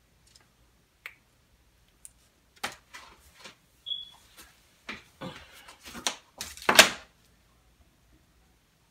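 Hands handling craft pieces on a plastic-covered table: a series of short rustles and light taps, with the loudest crinkle near the end.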